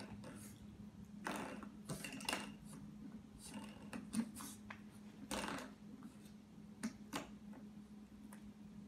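Faint, irregular metallic clicks and rattles of a spring door stop being mouthed and pawed by an English bulldog puppy.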